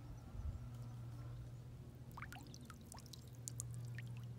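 Faint water dripping and trickling, with a scatter of small drips between about two and four seconds in, over a steady low hum.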